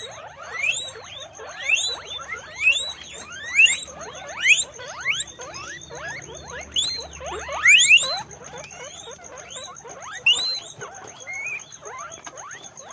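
Guinea pigs wheeking: a stream of short squeals that rise sharply in pitch, several a second and overlapping, louder in bursts midway.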